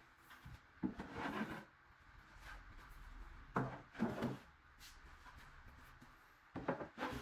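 Wood rubbing and scraping against wood in three short bouts, each under a second and each starting with a sharp knock.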